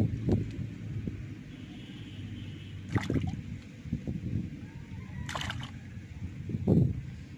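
Wet slaps and rustles of live fish being handled and shifting on grass, a few sharp ones standing out, over a steady low rumble.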